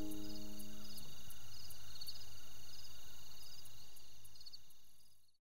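Insects chirping in an even rhythm of high pulses against a steady high trill, outdoor night ambience. The last notes of soft music die away in the first second, and the chirping fades out just before the end.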